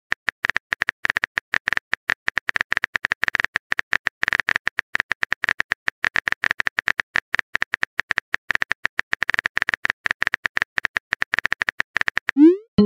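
Smartphone keyboard typing sound effect: rapid key clicks as a text message is typed out, followed near the end by a short rising swoosh as the message is sent.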